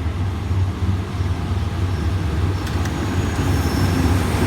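Steady low rumble of a GEK-class diesel locomotive running, with a few faint clicks about two and a half seconds in.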